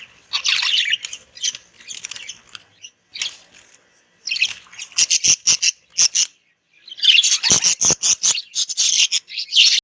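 Pet budgerigars chirping and chattering in bursts with short pauses. A few sharp clicks fall among the calls.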